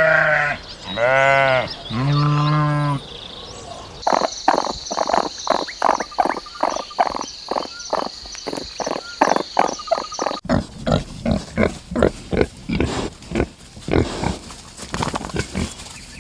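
Three wavering bleats in the first three seconds, then a long run of short pig grunts, about three a second.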